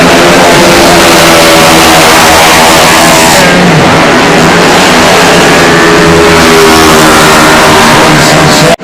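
130 cc automatic scooter engine running at high revs, loud and fairly steady, cutting out abruptly at the very end.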